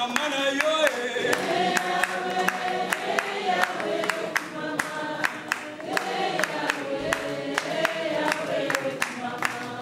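A group singing together in unison, with hands clapping a steady beat.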